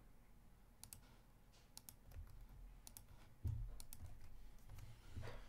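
Faint, scattered clicks of a computer keyboard and mouse, with a low thump about three and a half seconds in.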